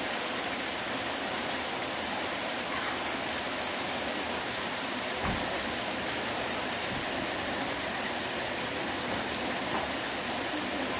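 Steady rushing of running water, with a single low thump about five seconds in.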